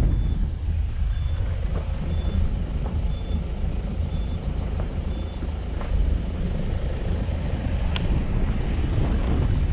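Car driving over cracked, patched asphalt, heard through a camera mounted outside on the bonnet: a steady low rumble of wind and tyre noise with a few knocks from bumps in the road. A faint high peep repeats about every three-quarters of a second for the first five seconds.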